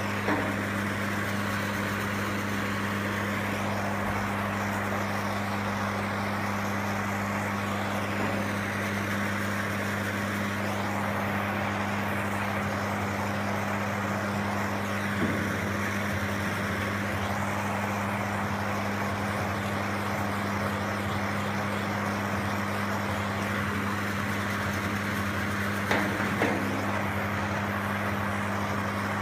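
Steady hiss over a low, even hum, with a few faint light taps about a second in, about eight seconds in, near the middle and near the end.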